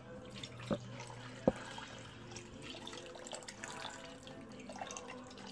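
Water pouring from a plastic bottle into a blender jar full of fruit, splashing and trickling. Two sharp knocks come a little under a second in and again at about a second and a half.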